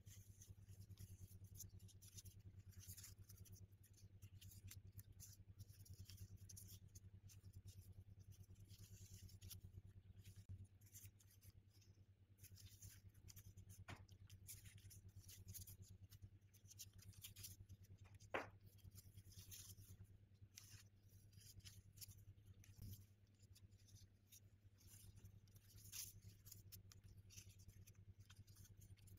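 Faint crinkling and rustling of disposable plastic gloves as hands handle and weave soft pastry strips, over a low steady hum, with one sharper tap about two-thirds of the way through.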